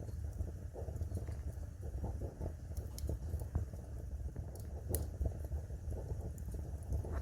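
Wood fire burning in a fireplace: a low steady rumble of flames under continual light crackling, with a few sharp pops of burning wood, the strongest about three and five seconds in.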